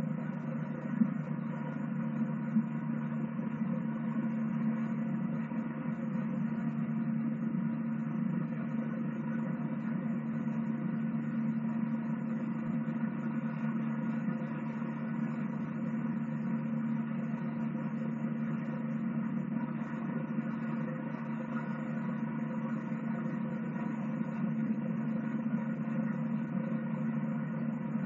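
Eurocopter EC145 helicopter hovering, its turbines and rotor giving a steady, even drone. Two short knocks come in the first few seconds.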